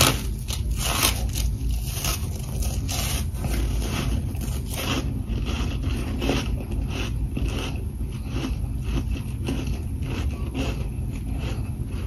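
A bite into a chunk of freezer frost at the start, then chewing it: a crisp, squeaky crunching made of many small irregular crackles, close to the microphone. A steady low hum runs underneath.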